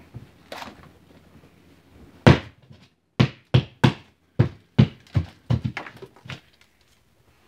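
Hammer striking drywall, about ten sharp blows: one on its own a little over two seconds in, then a quick run of about three a second. The blows are knocking a hole through the drywall.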